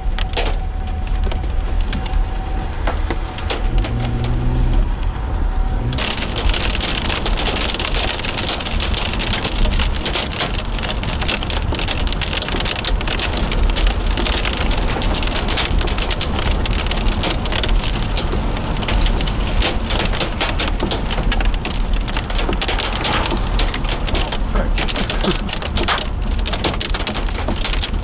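Heavy rain pelting a car's roof and windshield, heard from inside the car as a dense patter of many small hits over a low rumble. About six seconds in it suddenly becomes louder and denser. Before that a faint steady tone runs under it.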